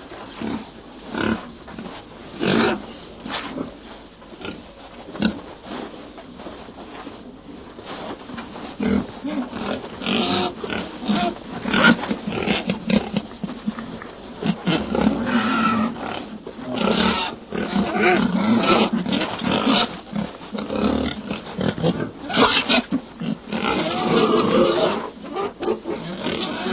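Staged wild boar grunting for the boar character, in short separate grunts at first that come thicker and louder from about ten seconds in.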